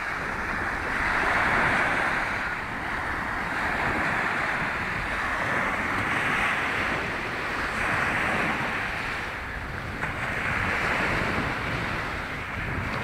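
Small waves breaking and washing up on a sandy shore, the surf hiss swelling and fading every couple of seconds, with wind rumbling on the microphone.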